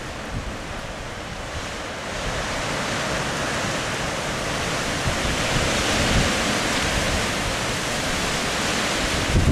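Wind outdoors: a steady rushing noise that swells about two seconds in, with low gusts buffeting the microphone, strongest near the end.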